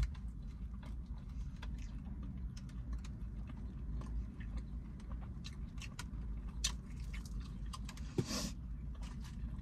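Close-miked chewing and biting of fried food: many small wet clicks and crunches, with one longer, louder crackle a little past eight seconds in.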